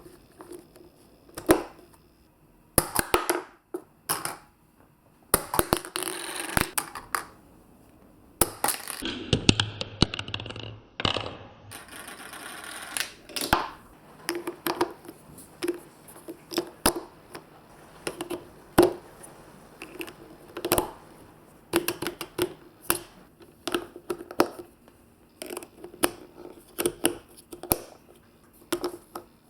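Marbles clicking and clattering down a plastic building-block and magnet-tile marble run: many quick, irregular taps and drops, with a denser rattling rush about a third of the way through.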